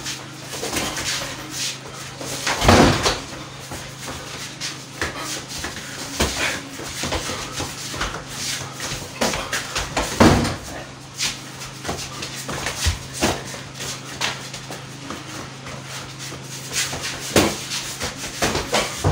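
Boxing gloves landing punches and bodies knocking against a wooden door and wall in a small room, many short knocks and scuffs throughout, with heavy thuds about 3 s and 10 s in.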